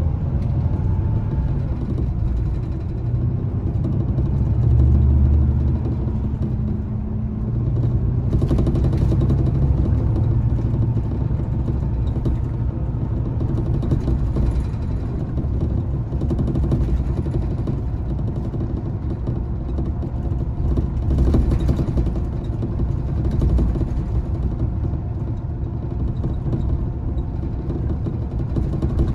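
Volvo B11RT coach heard from inside the passenger cabin while under way: a steady low rumble of diesel engine and road noise, swelling a little now and then as the coach pulls along.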